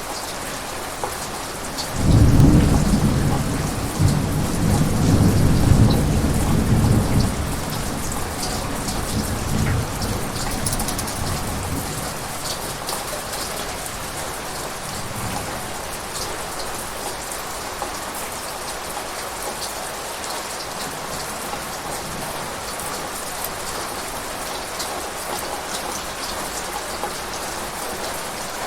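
Steady rain falling, with a long rumble of thunder that starts sharply about two seconds in, stays loud for several seconds and dies away over the next few, leaving the rain alone.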